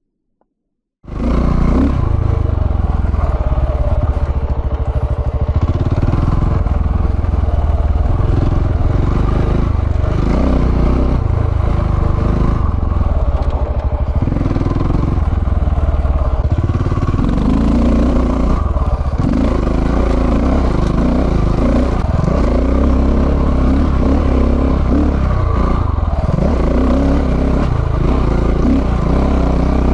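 After about a second of silence, a KTM 690's single-cylinder engine runs under load while riding off-road, its revs rising and falling with the throttle.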